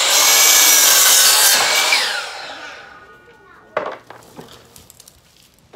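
DeWalt sliding compound miter saw cutting through a pressure-treated 1x8 board, then the blade spinning down with a falling whine after the cut, dying away about three seconds in. A sharp knock follows near four seconds in.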